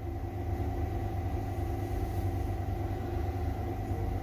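Steady low machine hum, unchanged throughout.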